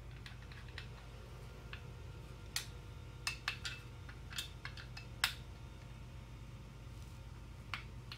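Two Allen keys clicking and clinking against a stunt scooter's rear axle bolts as the back wheel is tightened: a few scattered light metallic clicks, irregularly spaced, over a low steady hum.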